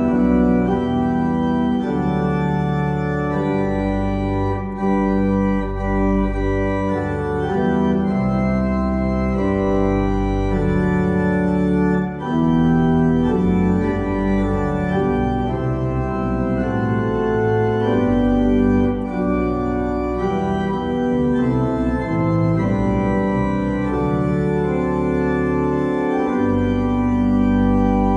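Church organ played with full, sustained chords changing every second or two over a deep pedal bass line.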